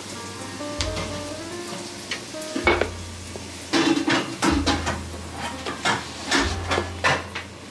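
Hot oil sizzling in a pan while a metal utensil stirs and clinks against it, the clinks coming thick and fast from about two and a half seconds in. Soft background music plays underneath.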